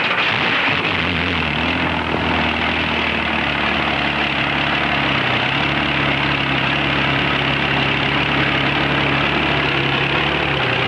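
A heavy engine running steadily with a low hum. A thin whine slowly rises in pitch through the second half.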